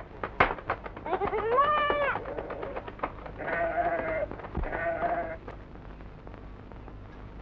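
A flock of goats and sheep bleating: three long bleats, the first rising and falling in pitch, with a few sharp clicks around the first.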